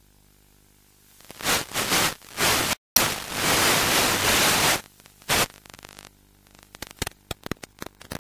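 Radio static from an analogue FPV video link breaking up, with the plane's 10 mW transmitter losing signal: hiss in bursts from about a second in, a cut-out, then a steady loud rush of nearly two seconds, and scattered crackles near the end.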